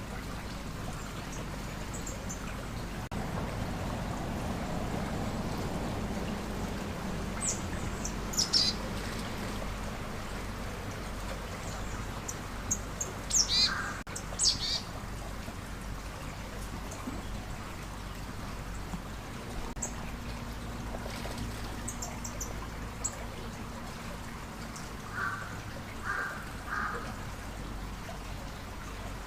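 Short, high chirping calls of wild birds, scattered and a few at a time, over a steady rush of stream water. The loudest calls come about halfway through, and a run of three lower notes comes near the end.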